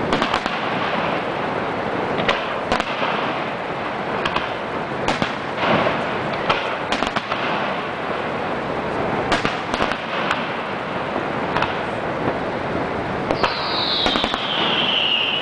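Aerial fireworks shells bursting: irregular sharp bangs, some with crackle, over a steady rushing background. Near the end a high whistle falls in pitch over about two seconds.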